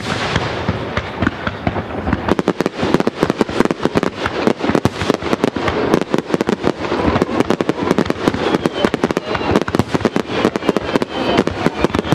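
Fireworks going off: a bang right at the start, then a dense run of rapid crackling shots from about two seconds in.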